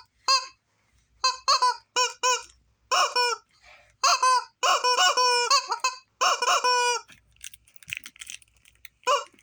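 Repeated short, squeaky honking squawks in quick clusters, each one nasal and wavering. Near the end comes a breathy, voiceless rasp with no pitch.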